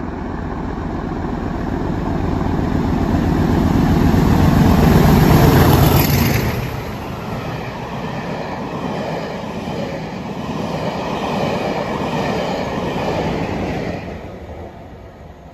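Diesel-hauled passenger train running through at speed: the locomotive's engine and wheels build to a loud low rumble that peaks about five to six seconds in and drops sharply as it goes by. The coaches then run past, with a second swell in the noise near the end as the tail of the train passes, before it fades.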